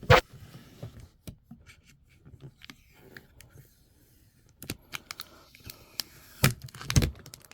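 Packaging and collectibles being handled by hand: scattered clicks and light rustling, a sharp knock at the start and two heavier knocks near the end.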